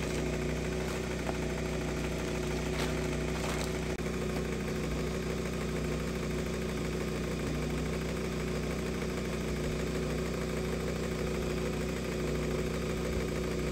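A steady engine hum at a constant pitch, with a few faint clicks about three seconds in.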